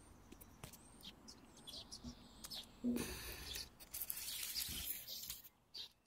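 Faint rustling and crackling of tomato leaves and stems being pushed through and handled, busiest in the second half, with a couple of faint bird chirps near the start.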